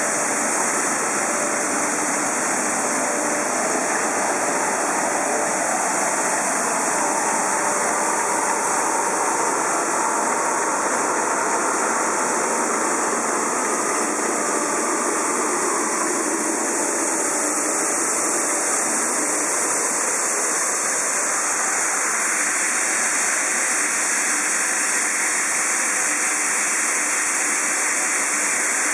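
ML100 plastic film pelletizing line running, with a steady loud rushing noise from its motors, blower and material flow that holds even throughout.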